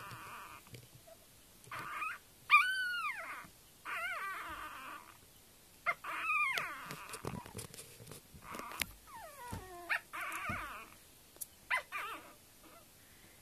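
Sleeping Staffordshire bull terrier puppies snoring in hissy breaths, broken by about five high squeaky cries that rise and fall in pitch, the loudest about two and a half seconds in.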